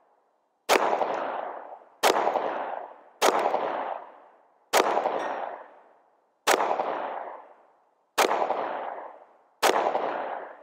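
Seven pistol shots fired at a slow, steady pace, about one every second and a half. Each crack trails off in an echo lasting about a second and a half.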